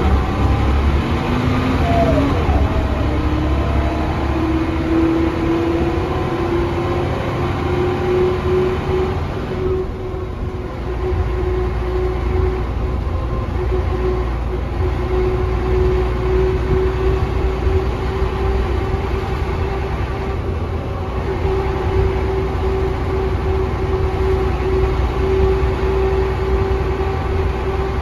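Mercedes-Benz O405NH bus under way, heard from inside the cabin: a whine from the ZF automatic gearbox and hub-reduction axles climbs in pitch over the first several seconds as the bus gathers speed, then holds steady as it cruises, over a constant engine rumble and road noise.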